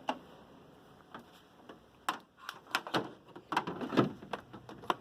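Handling noise: irregular light knocks and clicks, sparse at first and coming more often from about two seconds in.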